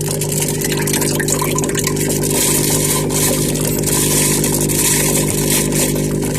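A steady machine hum with a strong hiss on top, running evenly and cutting off abruptly at the end.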